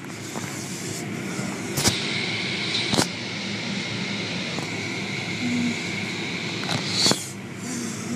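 Automatic car wash heard from inside the car: steady noise of the wash machinery and water spray, with a thin high whine through the middle. Cloth strips of the overhead wash curtain slap against the car three times, about two, three and seven seconds in.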